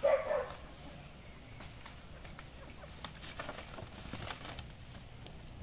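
Goats browsing on leafy branches, with scattered rustling and crackling of leaves as they pull and chew, thickest a little past the middle. A short call is heard at the very start.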